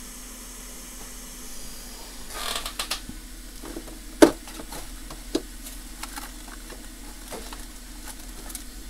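Small clicks and taps of tools being handled on a phone-repair bench, with one sharp click about four seconds in and another shortly after, over a faint steady hiss.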